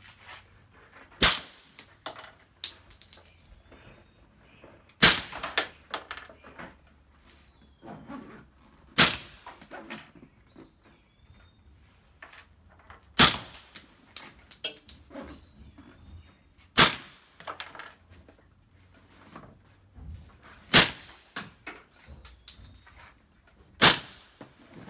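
Suppressed Glock 21 .45 ACP pistol fired seven times in slow single shots, one every three to four seconds. Each shot is a sharp crack followed by a few small metallic clinks.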